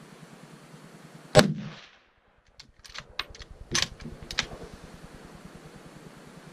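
Gunshots on a range: one loud shot with a ringing tail a little over a second in, then a string of quieter sharp cracks and two more shots about half a second apart near the middle.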